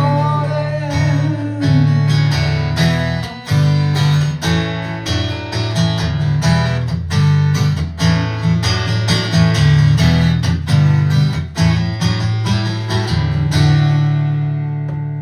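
Acoustic guitar strummed in a steady rhythm through an instrumental break in a folk-rock song, after a male voice sings a last held word about a second in. Near the end a chord rings out and fades.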